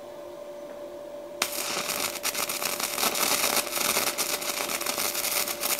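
Stick-welding arc on a 1/8-inch 7018 electrode, powered by a Weldbull Miura 180 mini inverter welder. It strikes about a second and a half in and crackles steadily from then on. The electrode holder is on straight polarity (electrode negative) instead of reverse, so the arc does not have the usual 7018 sound.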